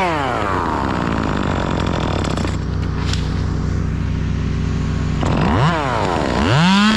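Chainsaw revved and let wind down: its pitch falls away over the first two seconds, then it is blipped up and down twice near the end. A steady low engine drone runs underneath.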